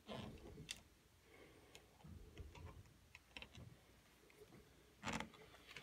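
Near silence with faint scattered clicks and soft low thumps, from footsteps and the handling of a handheld camera as its holder walks through a house. There is one louder brief rustle about five seconds in.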